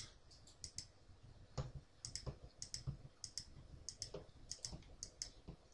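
Faint clicking of a computer mouse and the buttons of an Akai APC40 MIDI controller, many of the clicks coming in quick pairs, with a few soft thuds among them.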